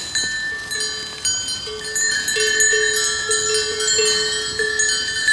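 Cowbells on a herd of long-horned Barrosã cattle clanking as the cows walk through the pasture. Several bells of different pitches ring over one another at irregular moments, and a lower bell strikes about twice a second in the middle stretch.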